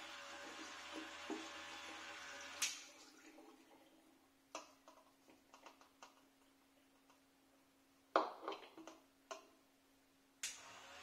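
Small battery-powered electric transfer pump running, with cider pouring through a funnel into a glass bottle, until it is switched off with a click about two and a half seconds in. A few light clicks and knocks follow as the plastic tube and funnel are handled among the glass bottles, and there is a sharp click near the end.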